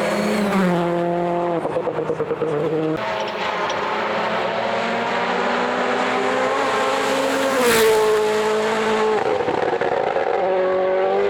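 Rally car engine at high revs, its note stepping down several times with gear changes and climbing again between them, with a brief rough, choppy stretch about two seconds in.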